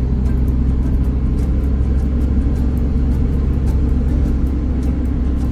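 Ford Transit camper van driving along a paved road: a steady low rumble of engine and tyre noise.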